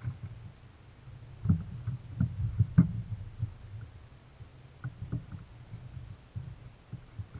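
Irregular knocks and thumps of footsteps and bumps on a fishing boat's deck as a person moves about on board. The loudest come in a cluster between about one and a half and three seconds in, with a few more around five seconds.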